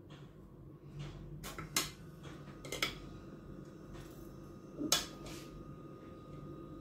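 Kitchen utensils knocking and clinking against a steel mixing bowl as spices are spooned in: three short, sharp knocks, the loudest about five seconds in.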